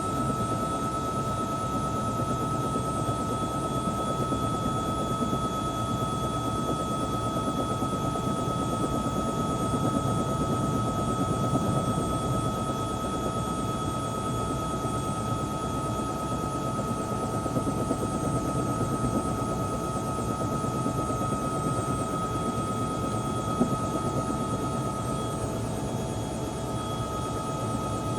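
Helicopter running steadily: a constant high whine above a dense, even rumble of rotor and engine noise, unchanging throughout.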